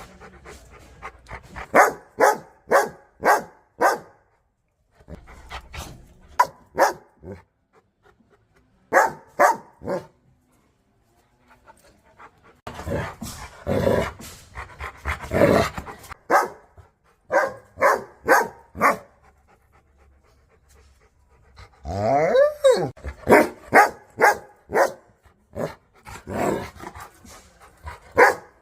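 Dogs barking aggressively in runs of sharp barks, about two a second, broken by short pauses. About two-thirds of the way through comes a drawn-out call that rises in pitch.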